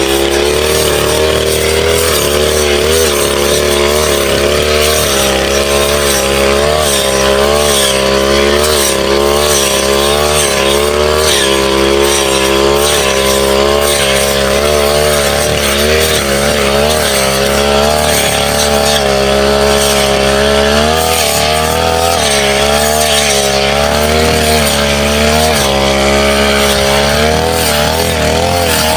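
Brush cutter engine running at high revs, its pitch wavering up and down without stopping as it cuts through grass and saplings.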